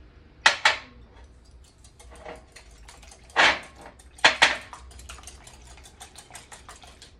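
A wire whisk beating the wet cookie mixture in a glass bowl: a few loud clinks of glass, then a fast run of light ticks as the whisk wires strike the side of the bowl.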